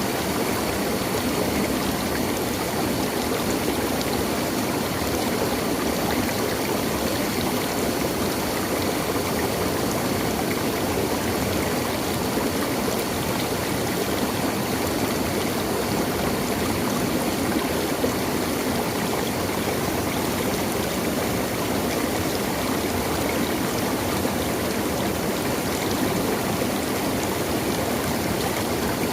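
Water in a stream flowing steadily: an even, unbroken rush with no breaks or separate splashes.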